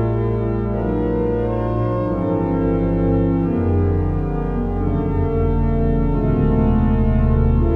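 Pipe organ playing sustained chords over a low bass line, the harmonies changing every second or two. It is a Hauptwerk virtual organ sounding samples of the Cavaillé-Coll organ.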